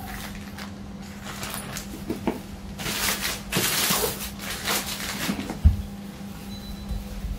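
Thin plastic bag rustling and crinkling as it is pulled off a hard-shell carrying case, then a single thump as the case is set down on the tile floor.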